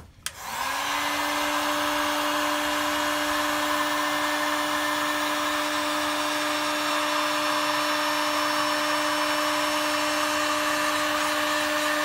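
Electric heat gun switched on with a click, its fan motor spinning up within half a second and then running steadily: a held tone over a rush of hot air. It is shrinking heat-shrink tubing over a battery cable terminal.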